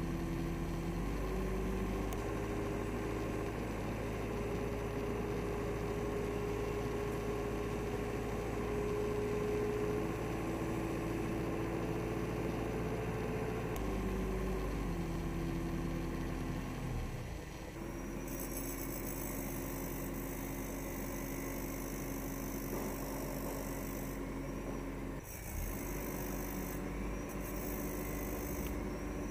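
Isuzu Elf drill truck's engine running steadily while the hydraulic crane boom and auger are raised and lowered. Its speed steps up about a second in and drops back about halfway through.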